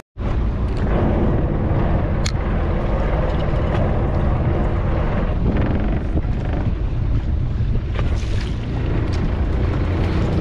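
Fishing boat's engine running steadily, with wind buffeting the microphone and sea noise, and a single sharp tick about two seconds in.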